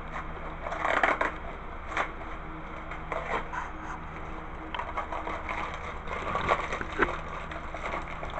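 Cardboard and plastic-wrapped exercise-bike parts being handled in a shipping box: irregular rustling, scraping and light knocks, with a few sharper bumps about a second in, at two seconds and near the end.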